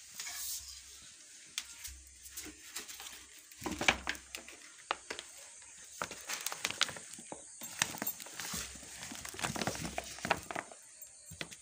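Woven plastic bag being handled and opened: irregular crinkling and rustling with small knocks and clicks.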